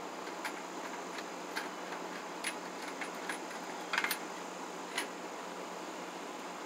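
Light clicks and small rattles from handling a plastic electrical box and fitting a Romex cable connector into it, with a short cluster of sharper clicks about four seconds in and one more a second later, over steady outdoor hiss.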